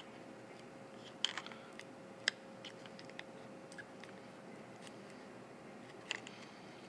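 Flat-bladed screwdriver working a rubber anti-vibration damper into the plastic gimbal mount of a Typhoon Q500 camera: faint scattered clicks and scratches, with a few sharper clicks about a second in, at two seconds and near the end, over a faint steady hum.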